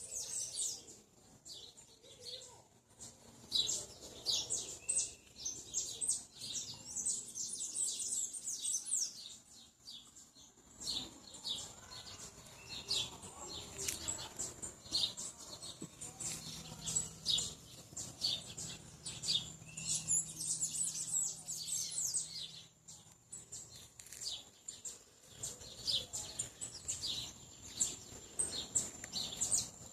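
Several small birds chirping and singing in quick, high-pitched runs of short notes, with brief pauses, over a faint steady high tone.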